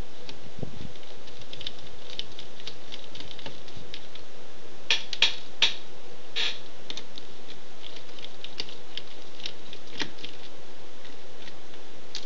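Small screwdriver turning out the screen bezel screws on a plastic laptop lid: scattered light clicks and ticks, with three sharper clicks about five seconds in and another near ten seconds.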